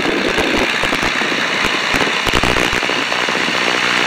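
Slipstream wind buffeting and crackling on the microphone over the steady drone of a Tiger Moth's de Havilland Gipsy Major four-cylinder inverted inline engine in cruise flight.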